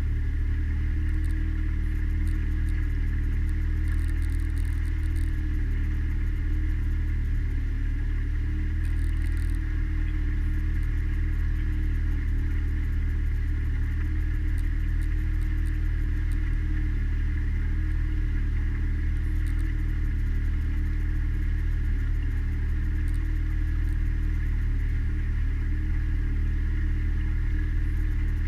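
Mariner outboard motor running steadily at an even, unchanging pitch while driving a small cruiser along under way.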